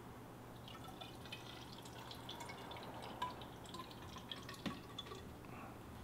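Faint dripping and trickling of water inside a clear acrylic bubble-wall column during a leak test, with many small scattered drips starting about half a second in.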